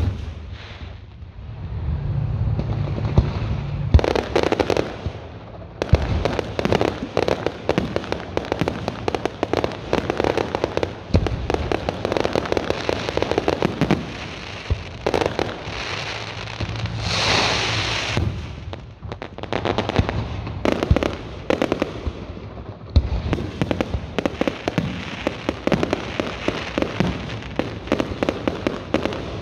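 Fireworks going off: a dense, fast crackling and popping with several louder bangs. A bright hissing burst comes a little past halfway.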